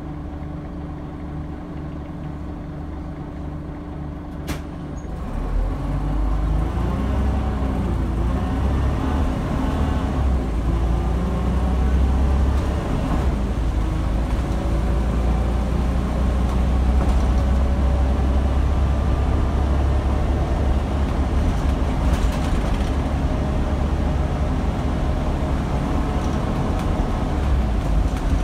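Scania DC9 five-cylinder diesel of a Scania N94UD double-decker bus idling, heard from inside on the upper deck. After a sharp click about four seconds in, the bus pulls away: the engine note grows louder and rises and falls through the gear changes, then runs steadily under load as the bus gathers speed.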